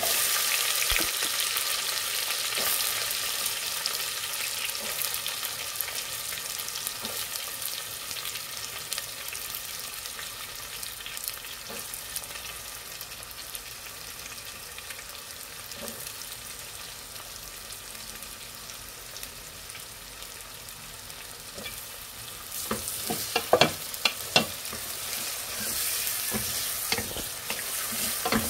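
Onions frying in hot soybean oil, sizzling strongly at first and settling to a softer sizzle as they cook. About 23 seconds in, a few sharp knocks come from stirring in the pan, and the sizzle rises again near the end.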